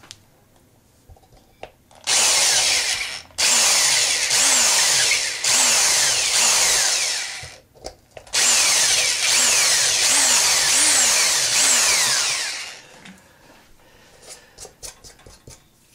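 Power drill widening switch holes in a guitar's thin wooden top, run in three bursts separated by short pauses, its pitch repeatedly sagging and picking up again as the bit bites; the holes are being opened up because the switches fit too tightly.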